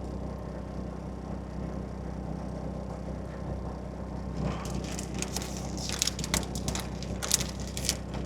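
Steady low hum of the car running with its air conditioning on. From about halfway, a run of small clicks and rustles as bolts and parts are handled.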